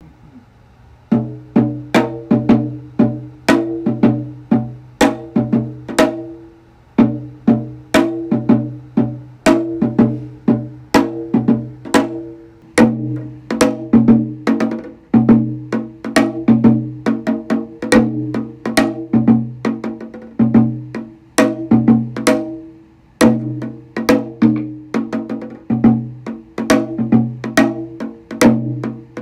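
Rhythmic percussive music: sharp wood-block-like clicks, about two a second, over a sustained low bass line, starting about a second in with a few short breaks.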